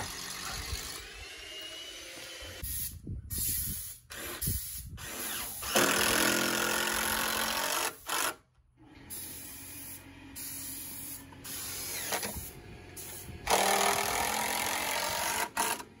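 Cordless drill driving long screws through a wooden block into a timber beam, running hard in two steady bursts of about two seconds each, about six seconds in and again near the end.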